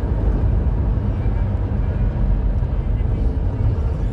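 Steady rumble of a road vehicle in motion: engine and road noise holding at an even level.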